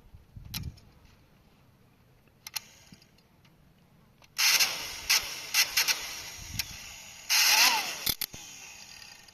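Small plastic washing machine being handled: a few single clicks, then a loud stretch of mechanical rattling and scraping full of clicks, with a short squeak near the end.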